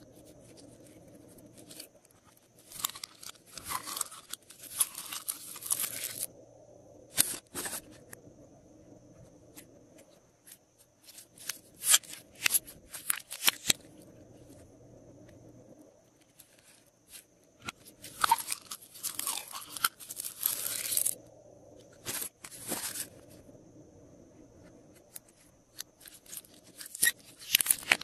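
Hands squeezing and kneading glossy slime, giving spells of sticky crackling and clicking, each a second or a few seconds long, with quiet pauses between them.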